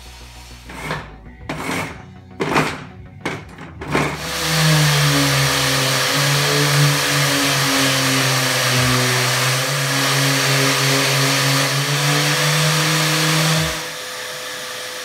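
Random orbital sander running steadily with a shop vacuum pulling dust through its hose, a loud even hum and hiss that starts about four seconds in, after a few short separate bursts of noise. Near the end it drops to a quieter steady hum.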